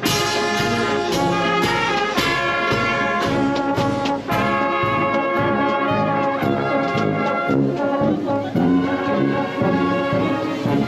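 Brass band music, trumpets and trombones playing a tune over a steady beat of about two strokes a second.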